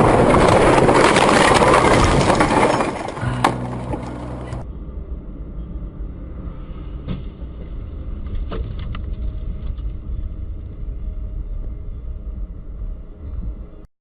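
Dashcam recording of a car crash: a loud rushing noise for about three seconds, then a sharp knock. Partway through it cuts to another in-car recording with a steady low engine and road hum and a few faint clicks.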